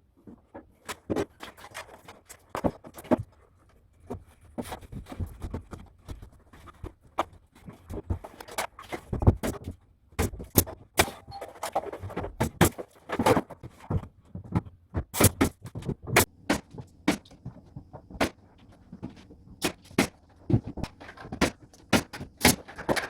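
An irregular clatter of sharp knocks and clicks, at times several a second, over a low rumble.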